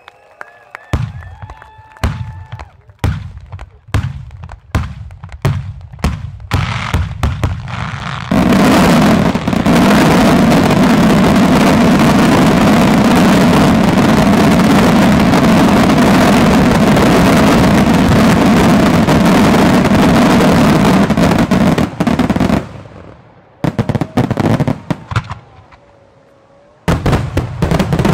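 Loud professional fireworks finale. Single firing bangs come about a second apart, then faster and faster. From about eight seconds in they merge into a continuous dense volley of shots and crackle lasting some fourteen seconds, which cuts off into scattered bangs and a last short cluster near the end.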